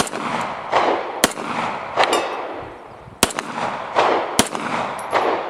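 Star 9 mm Luger semi-automatic pistol firing four single shots, at uneven intervals of about one to two seconds, each sharp crack followed by a long rolling echo. The rounds are Sellier & Bellot 115-grain, a load the shooter finds too weak to cycle this pistol reliably.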